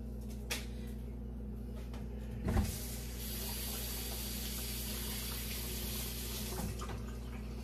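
Water running from a kitchen tap for about three and a half seconds, starting just after a thump and shut off abruptly, over a steady low hum.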